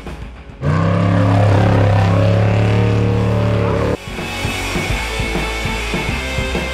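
Rock music, broken by about three seconds of an off-road race vehicle's engine running loud and steady, its pitch dropping slightly, which starts and cuts off abruptly. The music carries on after it with a steady beat.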